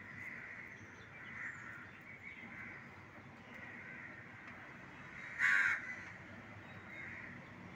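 Crows cawing repeatedly, a short call about once a second, with one short, much louder burst about five and a half seconds in.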